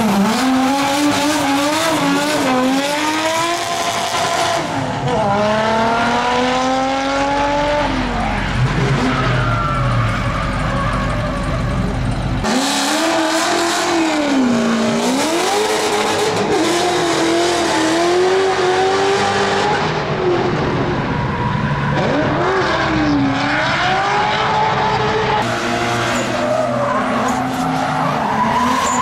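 Drift car engines revving hard, the pitch climbing through the gears, dropping and climbing again over and over, with tyres squealing and skidding through the slides.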